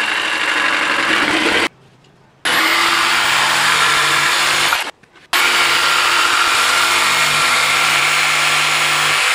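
DeWalt corded jigsaw cutting a curve through 3/4-inch plywood. It runs steadily in three spells, stopping briefly a little under two seconds in and again about five seconds in.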